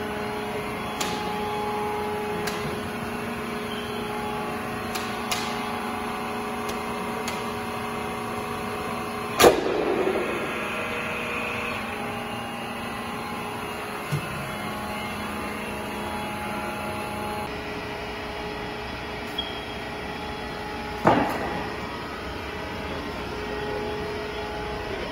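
Hydraulic core plug press running with a steady hum carrying several tones and small clicks. Twice, about nine and twenty-one seconds in, there is a loud knock followed by a short rush of noise.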